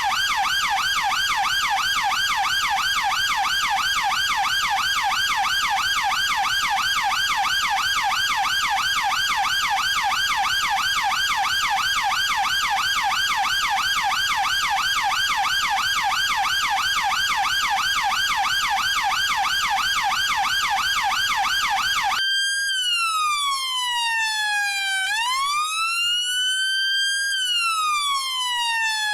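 Chinese police car's electronic siren on a fast, even warble of about three or four cycles a second. About 22 seconds in it switches abruptly to a slow wail that sinks and climbs over a few seconds each way.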